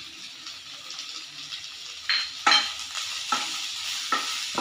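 Drumstick (moringa) leaves and onion frying with a steady sizzle in a nonstick kadai. From about two seconds in, a wooden spatula stirs them with a few scraping strokes against the pan.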